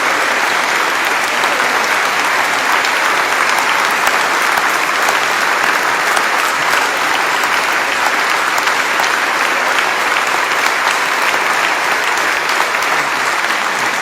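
Audience applauding steadily, a sustained wash of many hands clapping.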